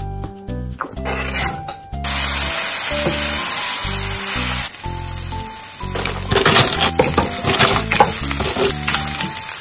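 Sliced onion frying in hot oil in a pan. The sizzle starts suddenly about two seconds in, and a few seconds later there is clattering as it is stirred.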